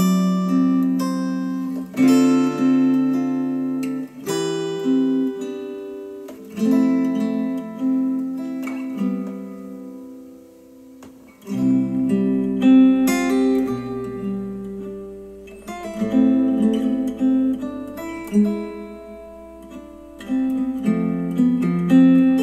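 Acoustic guitar music, plucked and strummed notes ringing out, played back through Polk Audio R200 bookshelf speakers on an Audiolab 6000A amplifier. After a dip in level about eleven seconds in, the same piece continues through KEF Q350 bookshelf speakers.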